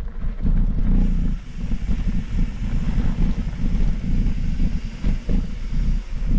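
Mountain bike rolling fast down a rocky trail: wind buffeting the microphone as a constant low rumble, with the bike rattling and knocking over rocks.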